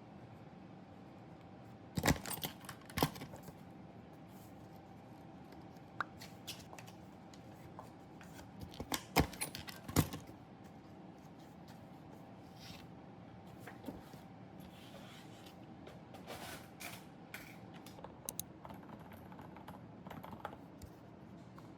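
Typing on a computer keyboard in irregular bursts of keystrokes. The loudest clusters come about two, three and nine to ten seconds in, with softer scattered taps later, over a faint steady room hum.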